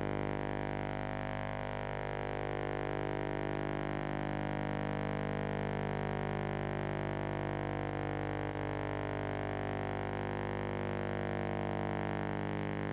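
Background music: a sustained synthesizer drone, steady in level, with slow sweeping tones drifting up and down over it.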